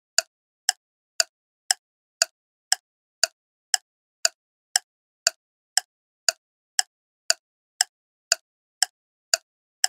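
Clock-tick sound effect for a countdown timer: short, sharp ticks, evenly spaced at about two a second.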